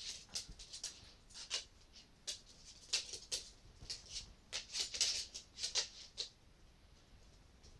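Coton de Tulear × long-haired Chihuahua puppies scrabbling while they play-wrestle: quick bursts of claws skittering and scratching on the floor and carpeted steps, dying away about six seconds in.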